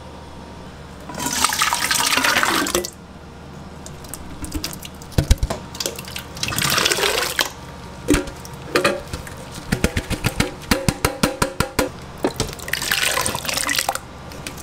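Thick canned tomato pulp poured from tins into a stainless steel pot in three wet pours of about a second and a half each. Sharp metal knocks and a run of quick taps come between the pours.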